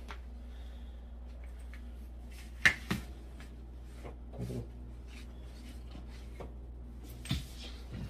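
Knocks and light scrapes of hands working at the base of a refrigerator as it is nudged and set into a tight space. The loudest knock comes about two and a half seconds in, with a duller thump midway and another knock near the end, all over a steady low hum.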